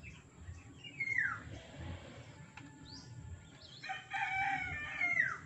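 A rooster crowing: a short falling call about a second in, then one long crow of several held notes near the end.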